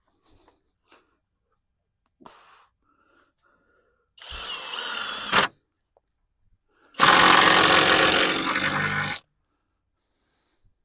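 Kobalt power drill driving screws into framing lumber: two runs, a short one of about a second and then a longer one of about two seconds.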